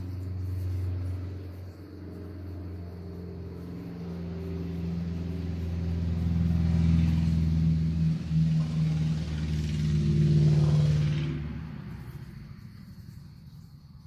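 An engine running with a steady low hum that grows louder over several seconds and then fades away near the end, as a vehicle does when it passes.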